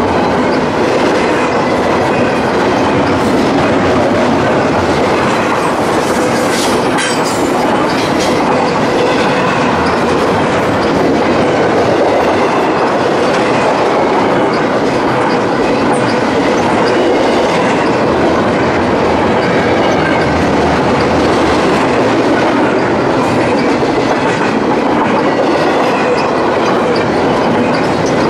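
Freight train cars rolling past at close range: a loud, steady rumble with wheels clattering over the rail joints and a few sharp clicks about seven seconds in.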